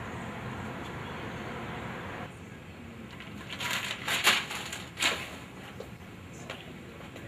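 A steady outdoor noise bed that cuts off after about two seconds, then footsteps on a hard hallway floor, a sharp scuff or clack at each step, the two loudest just past the middle.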